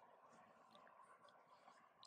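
Near silence: a faint steady hiss with a few soft, scattered ticks.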